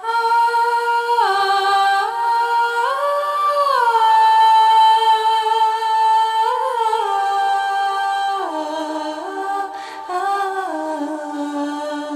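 Slow wordless solo melody introducing a Black Sea–style Turkish song: long held notes joined by short slides, drifting lower in pitch over the last few seconds.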